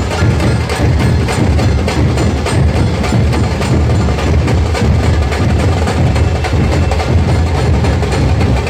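Loud, fast procession drumming: rapid sharp drum strokes in a dense, steady rhythm over a heavy low drum beat.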